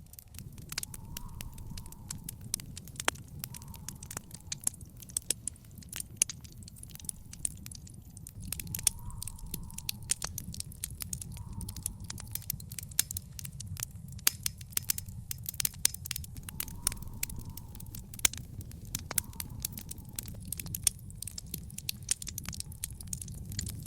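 Wood fire in an outdoor fire pit crackling, with frequent irregular sharp pops over a steady low rumble.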